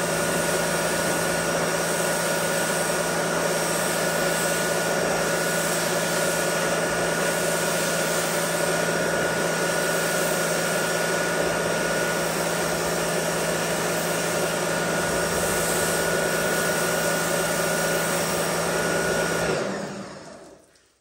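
Pressure washer running steadily with a constant motor hum and the hiss of its spray on the wheel well, then shutting off near the end.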